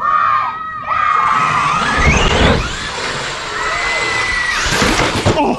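Electric RC truck motors whining, one rising sharply in pitch about two seconds in as it speeds up, mixed with children shouting and cheering.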